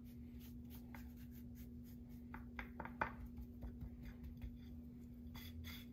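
Faint scratchy scraping and light ticks of a spoon spreading dry coffee-chili spice rub over a strip steak, with a steady low hum underneath.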